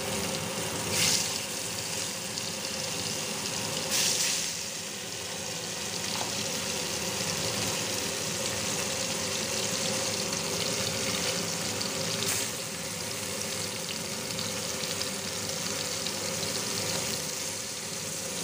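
Salt-and-turmeric-coated gule fish pieces frying in hot mustard oil: a steady sizzle, with brief louder crackles about a second in, at about four seconds, and just past twelve seconds.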